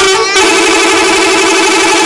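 Bus 'telolet' musical air horn playing its warbling multi-note tune, loud, with rapidly alternating tones.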